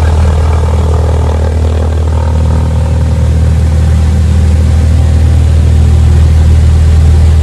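Cessna 172's piston engine and propeller droning steadily, heard from inside the cabin as the plane rolls down the runway, growing slightly louder toward the end.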